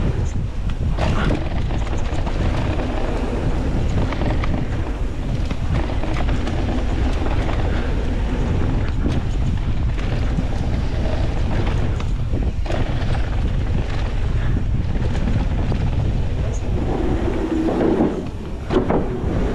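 Wind buffeting the camera microphone on a mountain bike descending a dirt trail at speed, with tyres rolling on dirt and the bike rattling over bumps. Near the end the tyres run onto a wooden boardwalk, the sound thickening for a second before a sharp knock.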